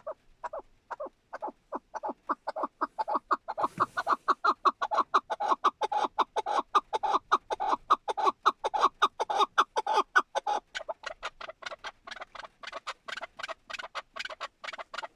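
Chukar partridge calling: a long run of quick, evenly repeated chuk notes, about four or five a second, louder in the middle and fading somewhat near the end. A brief thump comes about four seconds in.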